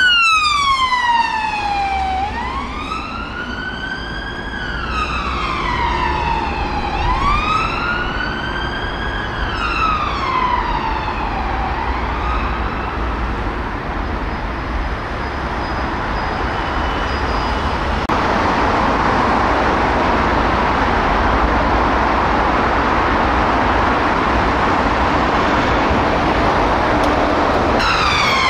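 Siren of a UK police Vauxhall Astra on a slow wail, gliding up and down over a few seconds at a time and fading out about twelve seconds in. Steady road traffic noise follows, and a siren starts up again at the very end.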